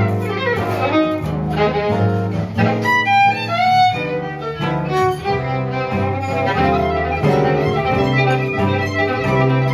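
Live jazz: a violin playing a moving melodic line over a band with a bass walking through steady notes underneath.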